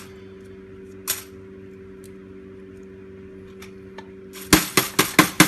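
Hammer tapping the lacquer-glued steel laminations of a small wall-wart transformer to loosen them: a single sharp metallic knock about a second in, then a quick run of about six loud knocks near the end.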